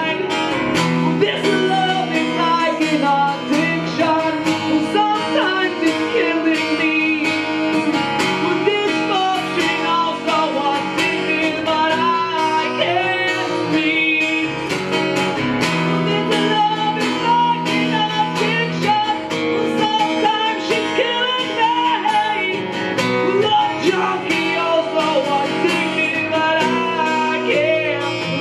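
Live acoustic rock song: an acoustic guitar strummed under a male lead vocal, with a harmonica played into the vocal microphone partway through.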